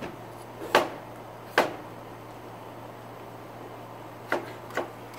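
Wooden spatula knocking against a frying pan while diced bacon and butter are stirred: four short knocks, two louder ones in the first two seconds and two softer ones about four seconds in, over a steady low hum.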